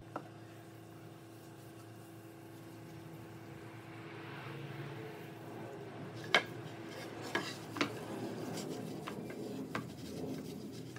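Cloth pad rubbing a liquid wood finish into a solid-wood shelf board: a soft, uneven wiping sound that grows a little louder partway through. It is broken by a few sharp clicks, the loudest just past the middle.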